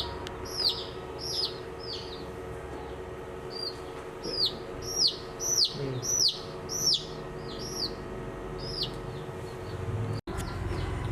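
Baby chicks peeping: repeated short, high chirps that each fall quickly in pitch, coming in quick runs and loudest in the middle, over a steady low hum.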